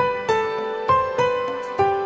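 Background music only: a gentle melody of single struck notes, about five in two seconds, each fading before the next.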